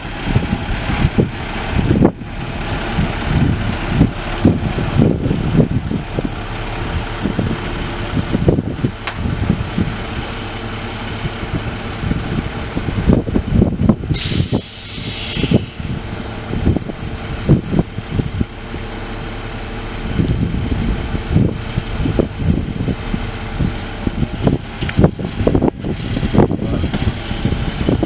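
International DT466E inline-six diesel of a 2000 International 4900 truck running steadily, with irregular knocks and bumps throughout. A short burst of hissing air comes about halfway through.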